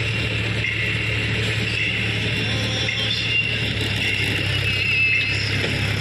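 Tractor's diesel engine running steadily, a low even hum.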